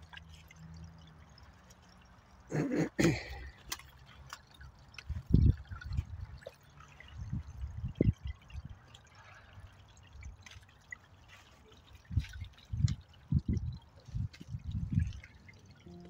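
A small forest stream trickling and dripping over rocks, with irregular short low thumps scattered through it, the loudest about five seconds in.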